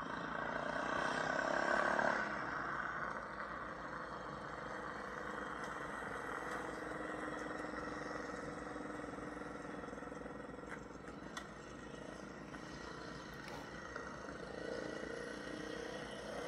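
Yamaha TT-R dirt bike's single-cylinder four-stroke engine running as the bike rides around, a steady hum whose pitch drifts a little with the throttle. It is loudest in the first couple of seconds.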